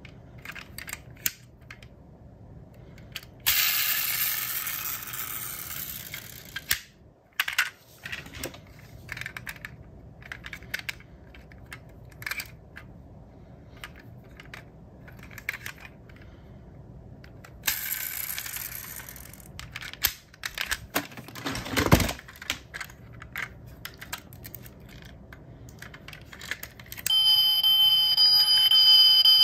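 Diecast metal model cars being handled: small clicks and ticks as doors, hoods and hatches are opened and shut, two longer scraping hisses, and a single heavier knock about two-thirds of the way in. Near the end the model SUV's built-in sound-and-light feature switches on, playing a loud steady shrill electronic tone of several pitches together.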